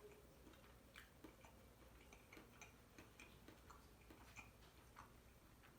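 Near silence with faint, irregular small clicks of someone quietly tasting food: an eating utensil and mouth sounds.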